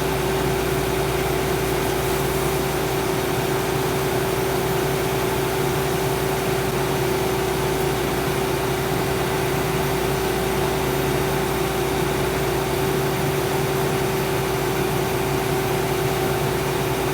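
An engine running steadily at idle, with a constant hum and no change in speed.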